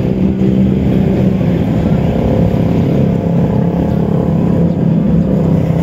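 Engine running steadily close to the microphone, its pitch easing down slightly partway through.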